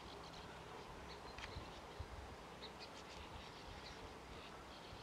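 Faint, scattered short high chirps of birds at their sand-bank burrow colony, over a low rumble.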